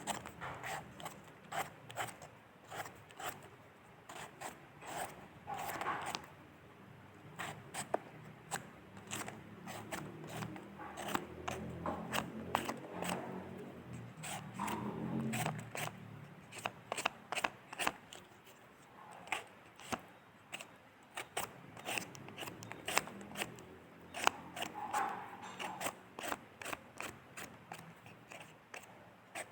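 Potato skin being peeled with a blade, close up: many short, sharp scraping strokes at an uneven pace, with softer rubbing of the potato in hand between them.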